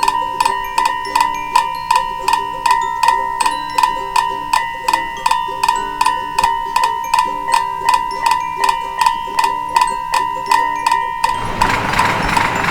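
Railroad crossing warning bell ringing: a rapid, even clanging of about three strikes a second over a steady high tone. Near the end a rushing noise swells for about a second and a half.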